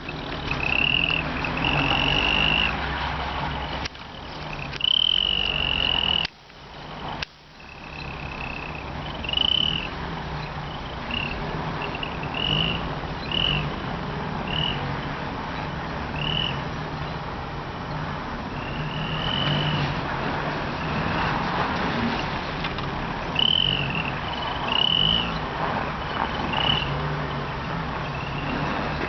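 Turbo Whistler exhaust-tip whistle on a Daewoo Nexia giving a thin high whistle in repeated short toots, some held for a second or so, over the car's steady engine and road noise.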